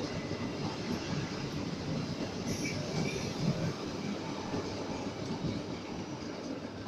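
Express passenger train's carriages passing through the station at speed without stopping: a steady rumble and clatter of wheels on rails, with a brief high wheel squeal about two and a half seconds in. The last carriage goes by near the end.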